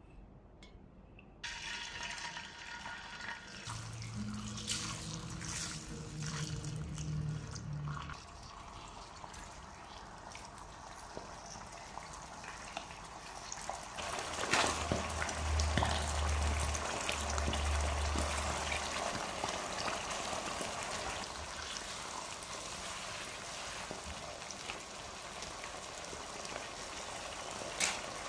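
Chili paste frying in hot oil in a wok, a steady sizzle as a spatula stirs it, growing louder about halfway through.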